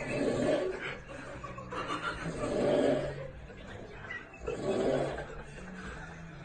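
A person snoring in sleep: a loud rasping snore about every two and a half seconds, three in all, over a low steady hum.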